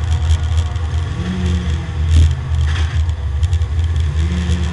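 Porsche 924 race car's engine heard from inside the cabin as the car slows for a corner, its note rising briefly about a second in and again near the end. A couple of sharp knocks come about two seconds in.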